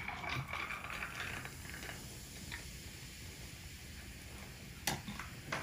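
Orange soda poured from a plastic bottle into a glass with ice: a splashing, fizzy stream, strongest in the first two seconds and then fainter, with two sharp clicks near the end.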